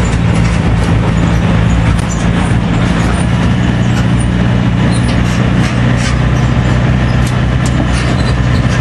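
Tractor engine running steadily as it tows an open passenger trailer uphill, with scattered clicks and rattles from the moving trailer.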